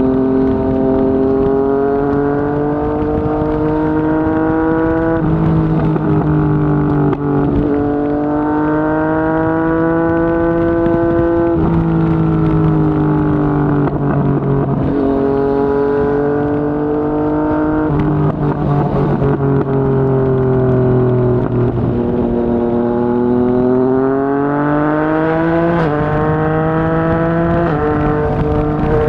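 Yamaha MT-09's three-cylinder engine through a Yoshimura R55 slip-on exhaust, ridden at varying throttle. The engine note swells and eases, with abrupt changes in pitch every few seconds as the bike shifts gear.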